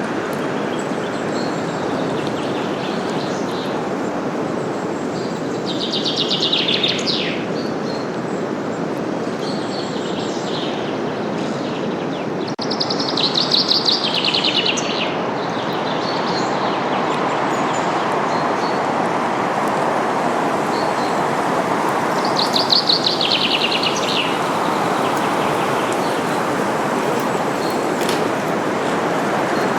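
Steady wind rustling through forest leaves, with a small songbird singing three short, rapidly trilled phrases spaced several seconds apart and a few faint chirps in between.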